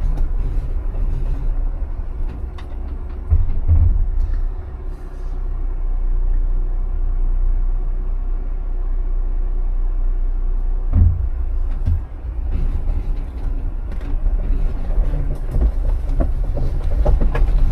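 Jeep crawling over a rocky off-road trail: a steady low rumble of the engine and tyres, with a couple of heavier thumps about 3 seconds and 11 seconds in.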